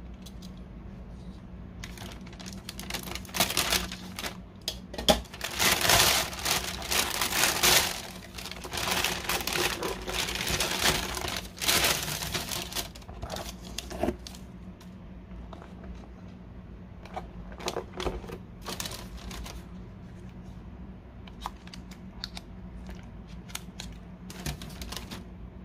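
Thin plastic carrier bag rustling and crinkling as a cardboard takeout box is pulled out of it, busiest for about ten seconds from two seconds in. After that come scattered light rustles and taps of the box and bag being handled, over a low steady hum.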